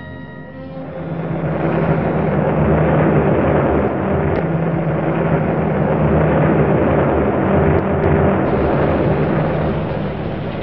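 Steady drone of aircraft engines with a rushing noise, swelling up over the first two seconds and easing slightly near the end.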